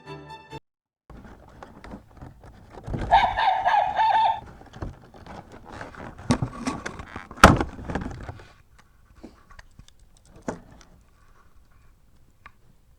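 Motion-alarm toy puppy being handled: rattling and clicks, a short electronic bark-like sound from its small speaker about three seconds in, and a sharp knock about seven and a half seconds in.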